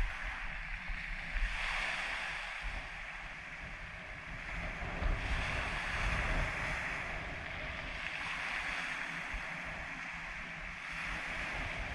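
Small sea waves breaking and washing up a pebble beach, the hiss of the surf swelling with each wave about every three seconds. Wind rumbles on the microphone underneath.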